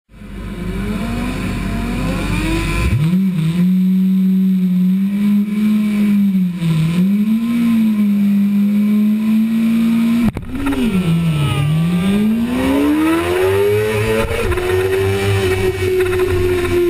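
2005 Suzuki GSX-R600 inline-four engine revving on the start grid. Its revs rise about 3 s in and are held fairly steady with small blips. After a sudden break about 10 seconds in, the note dips, then climbs steadily as the bike accelerates away, levelling off higher near the end.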